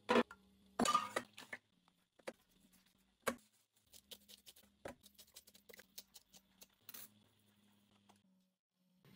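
Kitchen handling sounds: a few sharp clinks and knocks in the first three seconds or so, then a run of small quick ticks from a sea salt grinder being twisted, over a faint steady low hum.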